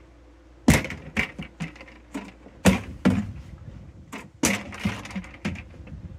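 Empty plastic Tidy Cats litter buckets tossed out of a pickup bed, clattering as they land and knock together. There are three main hits about two seconds apart, each followed by a few smaller knocks.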